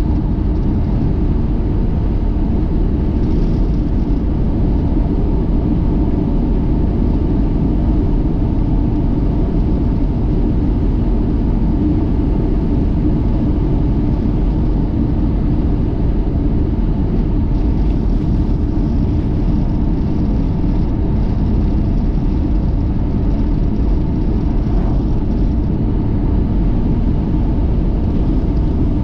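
Car driving at a steady speed: an even, unbroken rumble of engine and road noise.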